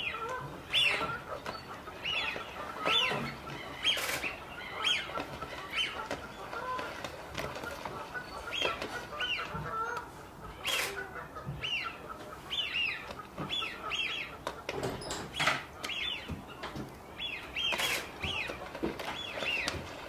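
Ducks splashing and flapping on the water, with a few loud sharp splashes, over many short whistled bird calls that slide down in pitch, repeated every second or so.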